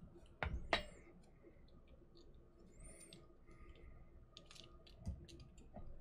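Faint clicks and light taps as a plastic UK three-pin plug and its cable are handled while the brown wire is fitted to a terminal, with two sharper clicks about half a second in and another near five seconds.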